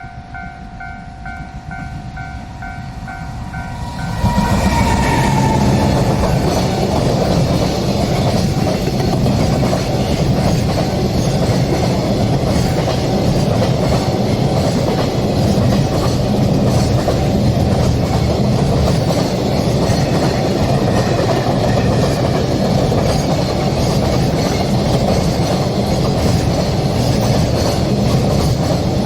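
Level-crossing warning bell ringing in steady pulses. About four seconds in, a train passes close by, loud and steady, drowning out the bell for the rest.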